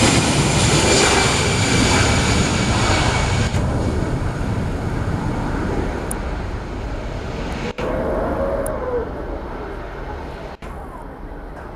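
Airliner engines roaring close by with a high whine, the noise dropping away after about three and a half seconds and fading as the aircraft moves off.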